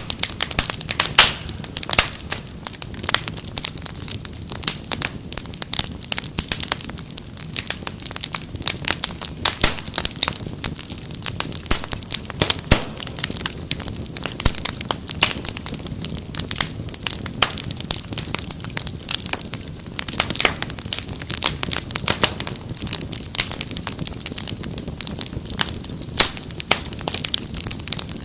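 Wood fire crackling: dense, irregular pops and snaps over a soft, steady low rumble of burning.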